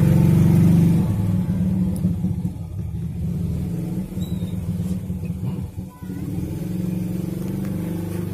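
A motor vehicle engine running with a steady low hum. It is loudest in the first second, dips for a few seconds, and rises again near the end.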